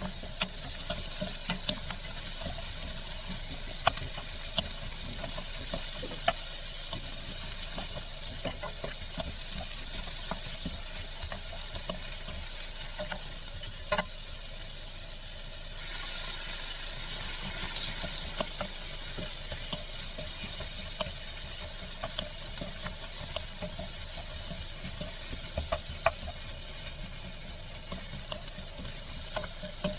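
Shiitake mushrooms and vegetables sizzling in a frying pan as they are stir-fried, with a spatula clicking against the pan at irregular moments. The sizzle gets brighter and a little louder about halfway through.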